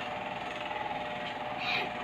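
A steady mechanical hum with a faint whine, like a small motor running nearby, and a brief soft noise near the end.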